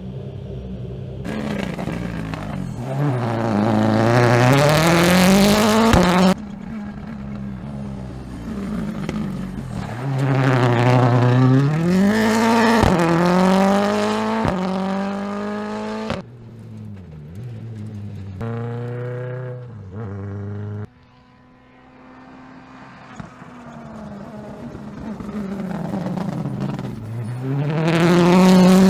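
The Ford Puma Rally1's turbocharged 1.6-litre EcoBoost engine revving hard as the rally car is driven, its pitch falling and climbing again several times through the gears. The sound breaks off abruptly between shots, and near the end it grows louder as the car comes close.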